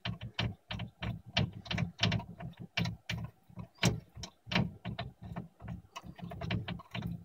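Fingers turning the bed-leveling adjustment knob under a 3D printer's build plate, tightening the nut down against its spring: an irregular run of small clicks and knocks, about two or three a second.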